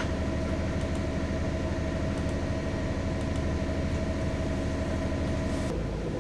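Trawler yacht's single inboard diesel engine running steadily at cruising speed, a constant drone with a steady whine over a low hum. Near the end the whine drops away, leaving a duller low hum.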